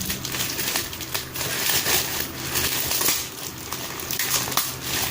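Sneaker packaging being opened by hand, crinkling and rustling unevenly throughout.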